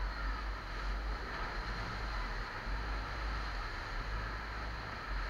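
Tour boat motoring slowly: a steady low engine rumble mixed with wind noise on the microphone.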